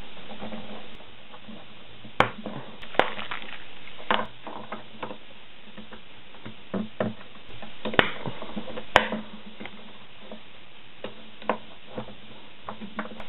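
Printed plastic 3D-printer parts and small metal hardware clicking and knocking together as they are handled and fitted by hand, in scattered irregular taps with a few sharper knocks near the middle, over a faint low hum.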